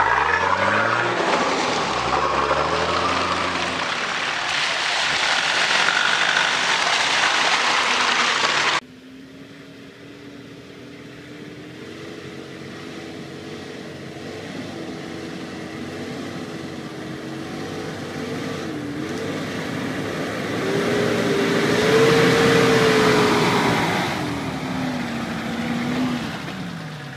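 Nissan Patrol 4x4 engine revving, rising in pitch at the start, as the truck drives through a muddy puddle. About nine seconds in the sound cuts to a quieter, slower engine working up a rutted dirt track. Its pitch wavers and it grows louder about two-thirds of the way through, then fades.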